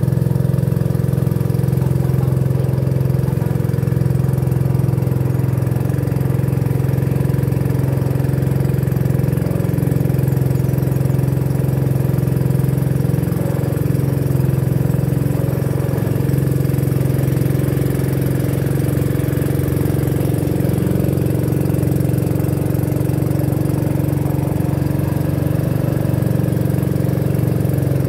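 Motor of a small wooden boat running steadily at an even speed.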